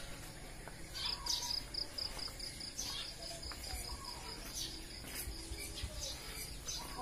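Crickets chirping at dawn: a high, rapidly pulsing trill that comes in about a second in, with birds chirping and calling over it.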